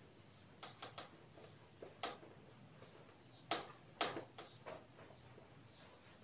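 A cloth wiping a whiteboard: a handful of faint, short swipes and taps against the board, the strongest about two, three and a half and four seconds in.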